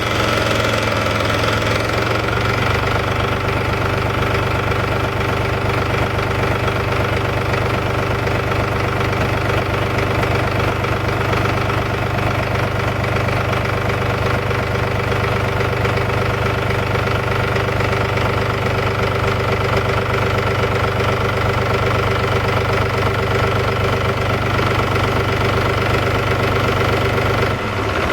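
Mahindra 4035 tractor's diesel engine idling steadily after a fuel filter change: it started right up, a sign that the air has been bled from the fuel system. It shuts off near the end.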